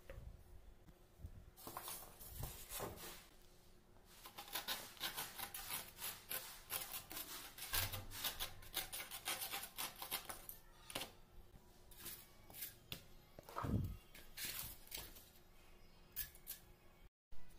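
Irregular rubbing, scraping and tapping from hands handling cardboard tubes and a foam board, with one heavier knock toward the end.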